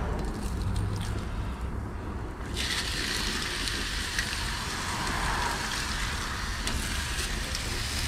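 Ham slices sizzling on a hot gas-grill griddle plate, the sizzle starting suddenly about two and a half seconds in and holding steady, over a low steady rumble.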